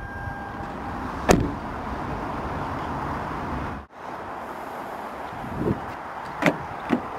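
A car door on a 2008 Lexus IS250 shuts with a single sharp thud about a second in, followed by a steady background hiss. Near the end come two sharp clicks as the rear door handle is pulled and the latch releases.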